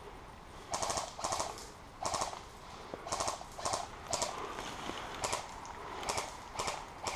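Airsoft electric guns firing about ten short full-auto bursts, each a rapid string of clicking shots, irregularly spaced.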